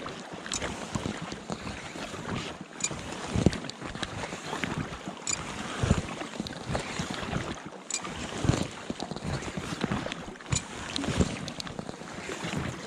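Paddle strokes from a packraft: the blade dipping and pulling through the water in a regular rhythm, about one stroke every two and a half seconds.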